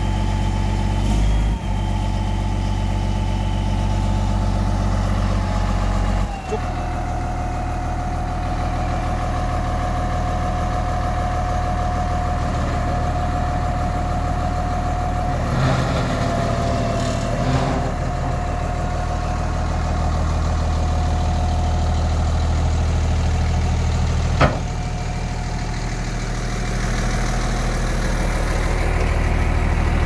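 Komatsu D85EX-15 bulldozer's six-cylinder diesel engine idling steadily, with a steady high whine over the engine note that drops slightly in pitch about six seconds in. A single sharp click comes near the end.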